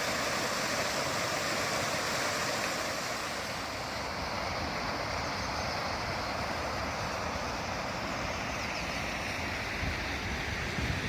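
Running water flowing steadily, a continuous even rush. Near the end a low rumble of wind buffeting the microphone comes in.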